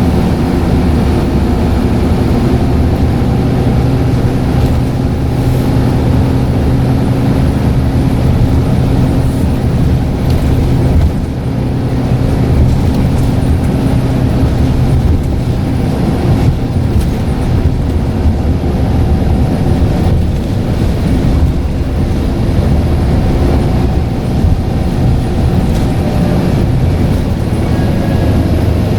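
Scania N94UD double-decker bus's diesel engine running steadily under way, with a short dip in level about eleven seconds in. A faint high whistle from the turbocharger shows briefly near the end.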